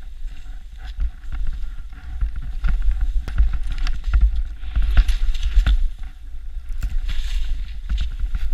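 Skis running through deep powder snow, heard through an action camera's microphone: a heavy wind rumble on the mic that swells and drops, a hiss of snow, and many scattered sharp clicks and knocks.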